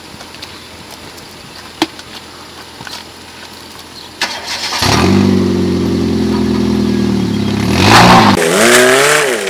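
A car engine starts about four and a half seconds in and runs steadily. Near the end it revs hard in a loud burst, its pitch rising.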